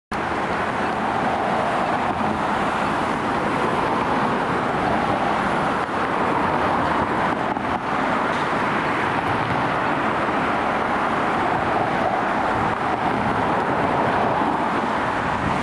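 Steady road traffic noise on a wet street: an even hiss of tyres and passing vehicles, with no siren or horn sounding.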